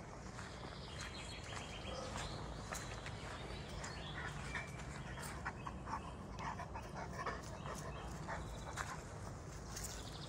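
A Greater Swiss Mountain Dog moving about close by on a dirt woodland path, with scattered short clicks and rustles of footsteps.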